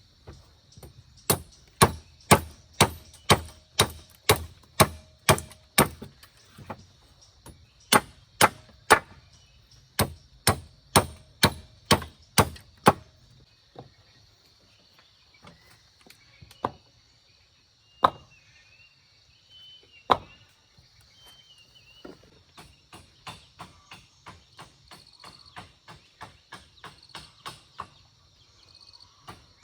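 Hand chopping: sharp, evenly paced blows, about two a second for some twelve seconds, then two single knocks and a few light taps. Insects chirr faintly and steadily in the background.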